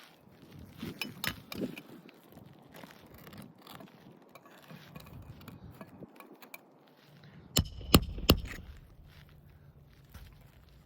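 Hands and a roof snake working roof shingles: light scraping and clicking, then three sharp knocks in quick succession about three-quarters of the way through.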